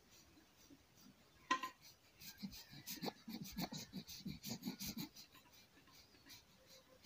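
A baby's faint, quick breathing, several short breaths a second, after a single short sound about a second and a half in.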